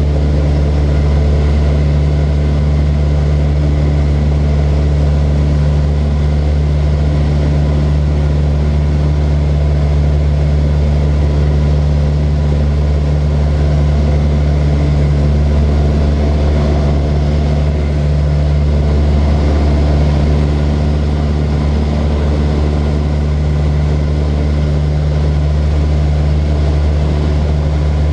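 Light propeller airplane's piston engine droning steadily, holding constant speed with no change in pitch.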